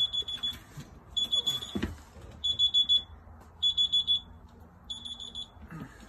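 A reminder alarm beeping: short groups of rapid high-pitched beeps, one group a little over every second, five groups in all.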